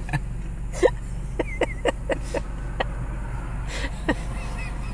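Steady low hum of a car's engine and cabin, with a few light, irregular clicks over it.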